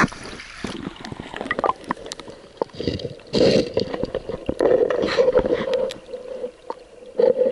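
Shallow creek water splashing and gurgling as a hand feels among the stones, heard through a camera dipped under the surface, with scattered knocks and bubbling.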